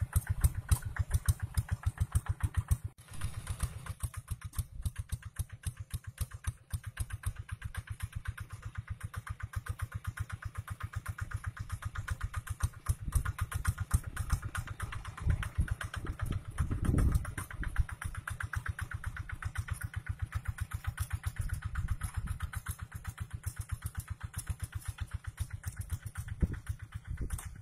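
Single-cylinder diesel engine of a two-wheel walking tractor running steadily under load while pulling a plow through dry soil, with even exhaust beats about seven or eight a second. The sound drops out briefly about three seconds in and is louder for a moment around seventeen seconds.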